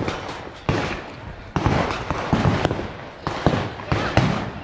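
Gunfire from an outdoor shooting range: about eight sharp shots at irregular spacing, roughly two a second, each followed by a short echo.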